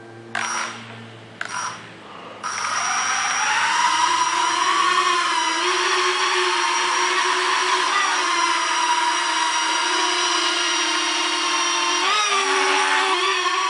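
Small ducted-propeller toy quadcopter's motors: two short bursts, then from about two and a half seconds in a steady high-pitched whine as it lifts off and hovers, with a brief wobble in pitch near the end as it manoeuvres.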